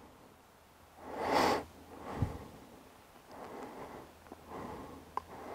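A person breathing close to the microphone: one loud breath about a second in, then fainter breaths, with a small click near the end.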